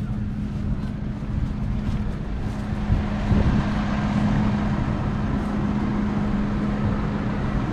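A steady engine hum, one unchanging drone, with wind rumbling on the microphone.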